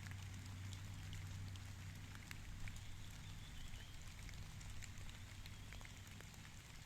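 Light rain falling, with many scattered individual drops ticking on leaves over a steady low hum.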